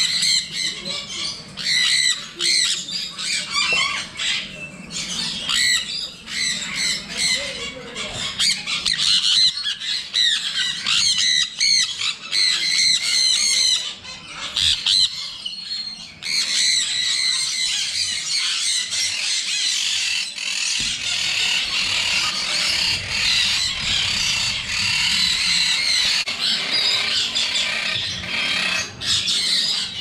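Many caged parrots, mostly sun conures, screeching loudly and without a break, with shrill calls piling over one another. About halfway through the calls merge into a denser, steadier chorus.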